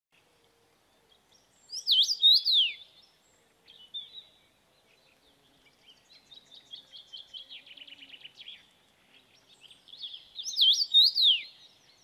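Small birds calling: a burst of high, swooping chirps about two seconds in, a short chirp a little later, a fast run of short chirps in the middle, and another burst of swooping calls near the end.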